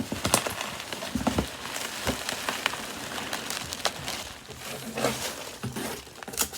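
Packing peanuts and packaging rustling, squeaking and crackling as hands dig through a box of loose fill, with irregular small clicks and knocks.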